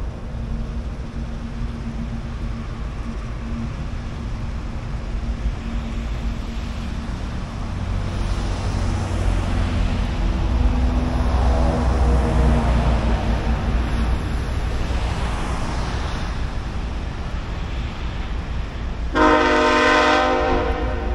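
Freight train's diesel locomotives running with a steady rumble that swells in the middle as the train passes. Near the end the locomotive air horn sounds one blast of about two seconds.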